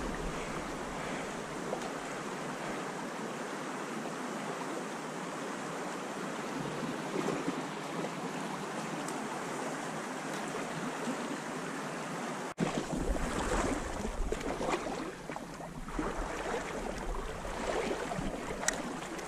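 River current rushing around rocks, a steady hiss of moving water. After a sudden break about two-thirds through, the water sound turns more uneven, with low rumbling and small rustles.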